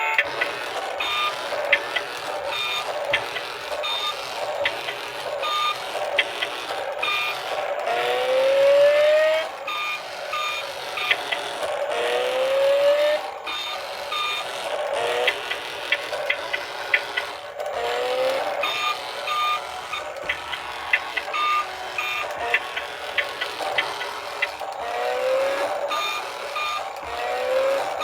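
Electronic toy sound effects: short repeated beeps over a busy jingle, with rising whooping tones a few times, around 8, 12 and 25 seconds in.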